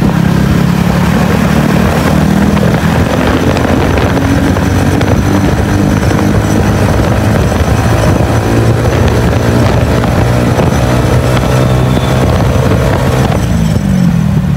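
Motorcycle engine running while the bike is ridden at speed, over a steady rush of wind and road noise. The engine note shifts near the end as the throttle changes.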